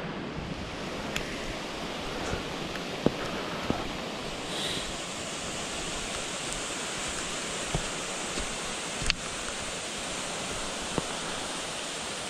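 Steady rain and wind in a forest, heard under an umbrella: a constant even hiss, with a few louder drops landing as sharp taps now and then.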